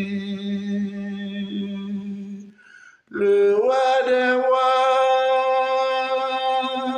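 A man singing long held notes of a French gospel song. One note is sustained, there is a brief break about two and a half seconds in, and then a second note rises and is held.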